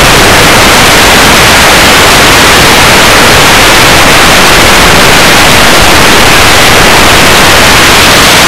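Loud, steady static-like hiss that covers the whole sound range, with no distinct blast or impact heard.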